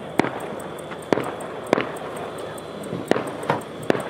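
A series of sharp strikes at uneven intervals, about six in four seconds, each with a short ring after it.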